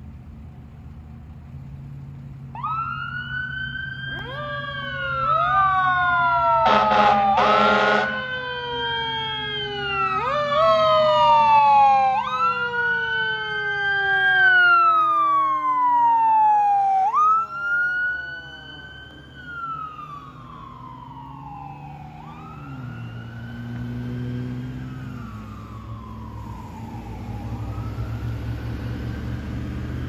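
Fire engine siren sweeping over and over, each cycle a quick rise and a slow fall. About seven seconds in come two short air horn blasts. The siren fades after about eighteen seconds as the truck moves away, with a low steady engine rumble underneath.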